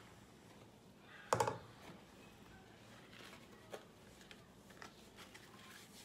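Faint rustling and small clicks of fresh corn husks being handled and folded around masa, with one short, louder clatter about a second and a half in.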